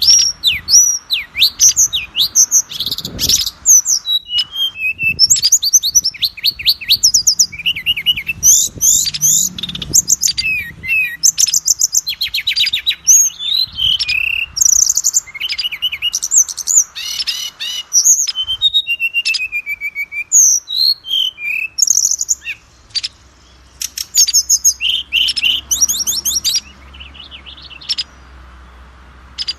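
Oriental magpie-robin (kacer) singing a loud, fast, varied song of whistles, rapid trills and chattering notes, with no pause until it falls silent near the end.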